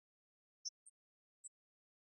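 Near silence, broken by four very short, faint, high-pitched chirps.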